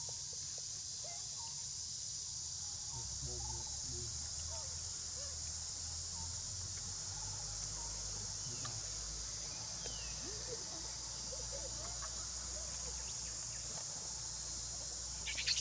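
Steady, high-pitched drone of an insect chorus in the surrounding forest, with a short run of louder, rapid high chirps right at the end.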